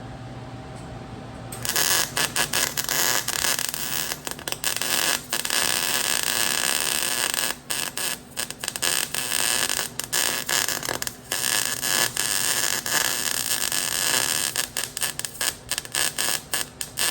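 Wire-feed welder arc crackling as a beginner runs a bead. It starts about a second and a half in and keeps cutting out briefly rather than holding a constant crackle, a sign that she is moving too fast side to side and holding the torch too far from the metal.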